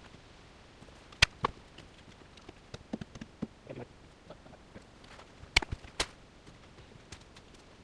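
Scattered sharp knocks and clicks over a quiet background, with loud ones a little after a second in and two more around five and a half and six seconds in.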